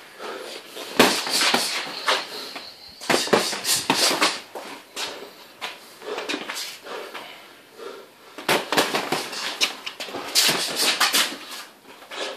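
Boxing gloves landing in quick flurries of punches: sharp slaps and thuds in several bunches, with pauses between.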